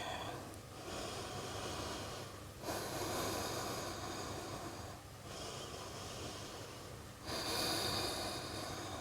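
A woman breathing slowly and audibly, long breaths in and out of about two seconds each, four in a row.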